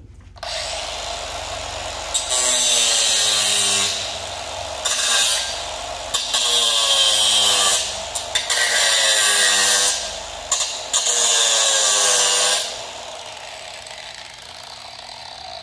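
Cordless angle grinder starting up, then biting into the workpiece in about five passes of a few seconds each, with a loud hissing grind. Its motor pitch sags under load and recovers between passes. Near the end it runs free and winds down.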